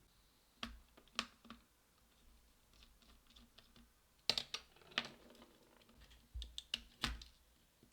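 Scattered light clicks and taps of a precision screwdriver working a tiny screw among small metal parts inside a laptop, with a few sharper knocks, most of them around the middle and near the end.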